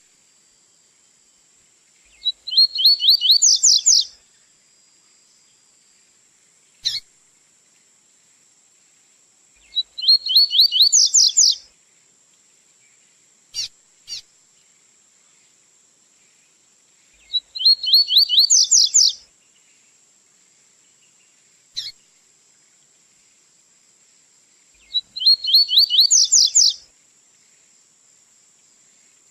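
Double-collared seedeater (coleiro) singing its tui-tui song type: four phrases of about two seconds each, every phrase a fast run of high upward-sweeping notes, spaced about seven seconds apart. Single short chip notes fall between the phrases.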